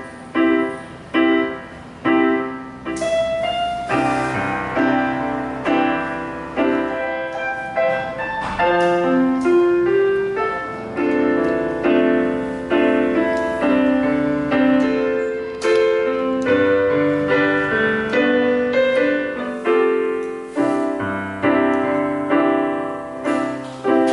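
Piano playing: chords struck in a steady pulse, each fading before the next, then a melody over the chords from about three seconds in.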